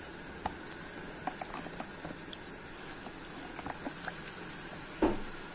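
A lump of charcoal heating in a gas burner's flame, crackling with small scattered pops over the burner's steady hiss, as it starts to catch. A louder, duller knock comes near the end.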